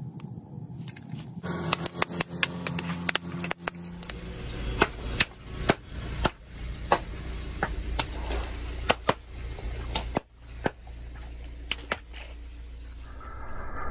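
Long twisting balloons bursting one after another under a car's tyre: about a dozen sharp pops at uneven intervals, with a steady low rumble of the car underneath from about four seconds in.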